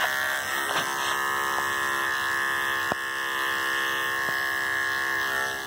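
Andis electric dog clippers with a number 10 blade running at a steady buzz while clipping a dog's fur short.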